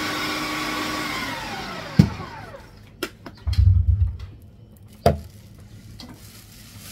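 Electric pumpkin grating machine's motor running with a steady whine, switched off about a second in and winding down, its pitch falling over a second or so. A few knocks and thumps follow as the lid and pusher are lifted off the jug.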